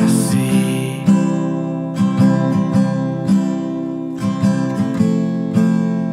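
Acoustic guitar playing chords, struck in separate strokes a fraction of a second to a second apart and left ringing between them, with no voice.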